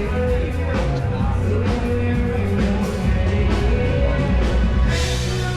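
Music with a steady beat and a strong bass line, held notes running over it.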